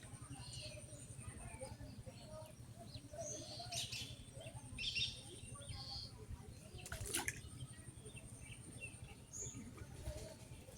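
Small birds chirping in short, scattered calls, with a few sharp clicks and a faint steady high whine behind them.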